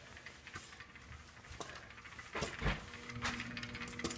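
Faint household noises: scattered light clicks, a dull thump about two and a half seconds in, then a steady low hum that starts just after it.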